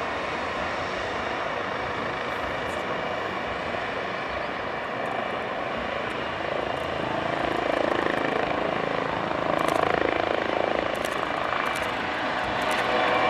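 Eurocopter EC135 helicopter's twin turbines and rotors running with a steady whine, getting louder about seven seconds in as it lifts off the pad.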